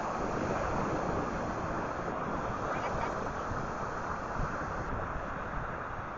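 Steady rush of ocean surf washing onto a sandy beach, mixed with wind blowing across the microphone.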